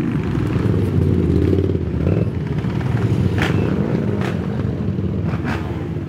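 Several racing ATV engines running together at close range, with a few short clicks over the engine noise.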